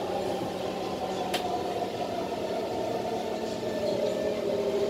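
Inside a Kawasaki Heavy Industries C151 metro train running between stations: a steady running noise with a whine in several tones that drift slowly in pitch. A single sharp click comes about a second and a half in.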